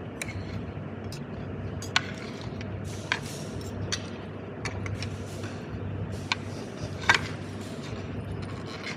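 Metal fork and spoon clinking and scraping on a ceramic plate of rice and duck: a handful of sharp clinks, the loudest about seven seconds in, over a steady background hum.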